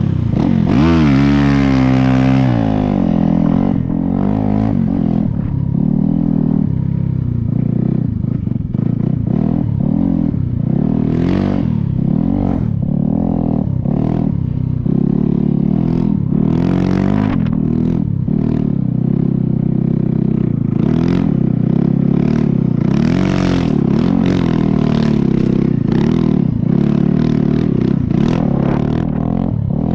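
Snow bike's dirt-bike engine running loud, with its pitch falling from a rev in the first couple of seconds, then holding steady with repeated short surges.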